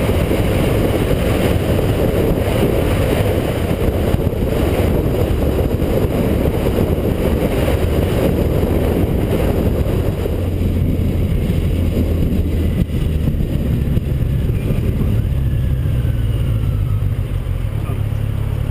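Motorcycle riding at road speed, heard from a camera mounted on the bike: wind rushing over the microphone over the engine's drone. About ten seconds in the wind noise falls away and the engine's steady low hum comes forward.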